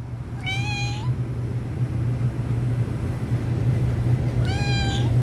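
Domestic cat meowing twice, about four seconds apart, each call short and high, over a loud steady low hum.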